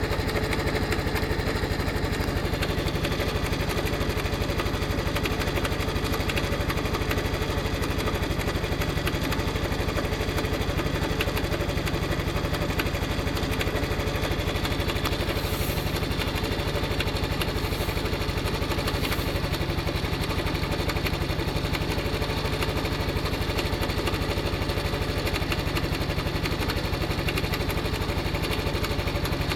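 Honda Cross Cub's single-cylinder four-stroke engine idling steadily with an abnormal mechanical noise. The owner finds the noise goes away once the engine is fully warmed up and blames it on the rubber parts around the cam chain.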